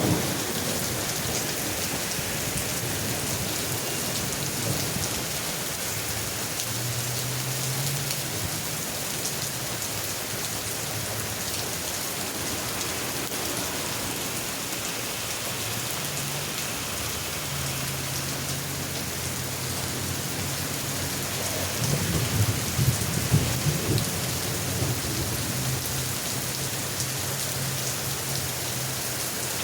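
Heavy rain falling steadily in a thunderstorm, with low thunder rumbling beneath it. The rumbling swells into a louder, choppy peak a little past two-thirds of the way through.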